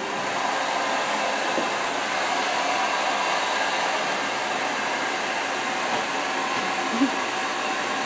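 Steady rushing of blown air from a small motor-driven blower, such as a hair dryer, running continuously at an even level.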